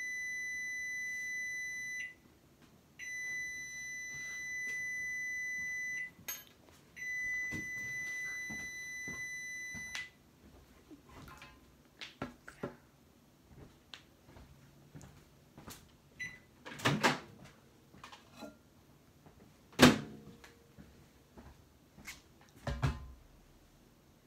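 An electronic appliance beeper sounding three long, steady, high beeps of about three seconds each, a second apart. After that come scattered small clicks and taps, with a sharp knock about twenty seconds in as the loudest.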